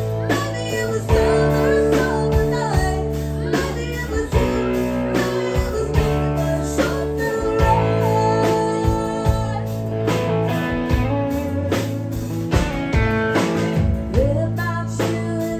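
Live country band playing: acoustic guitar strummed over bass and a steady drum beat, with a woman singing.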